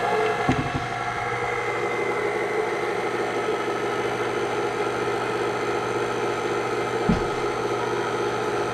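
KitchenAid stand mixer running steadily on low speed, whisking set gelatin into hot sugar syrup until it melts. Two brief low thumps, about half a second in and about seven seconds in.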